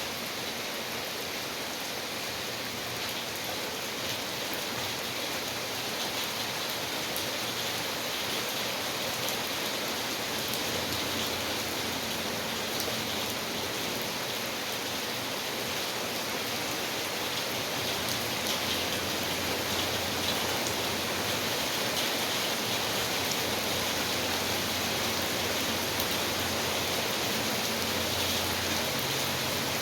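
Steady rainfall, a dense even hiss with many fine drop ticks, getting slightly louder in the second half.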